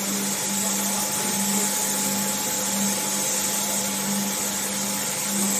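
Steady industrial noise of a V-process vacuum molding line: a constant low machine hum under a strong hiss, fitting a compressed-air spray gun misting coating onto the film-covered mould.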